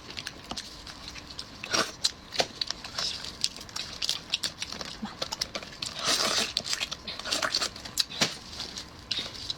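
Close-miked eating sounds: chewing and lip-smacking on a mouthful of crawfish meat, with many small wet clicks and crackles.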